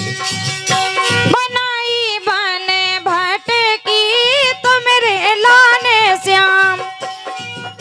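Bundeli Diwari folk music: a steady drone and a repeating drum beat, with a long wavering, heavily ornamented melody line from about a second and a half in until about seven seconds.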